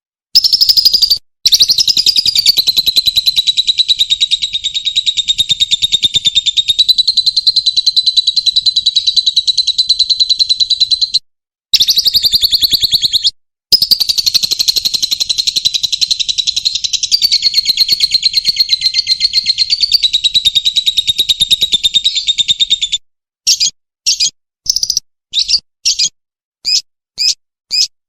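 Small bird chirping in a very fast, dense, unbroken string of high notes, with brief pauses twice near the middle and breaking into short separate bursts near the end.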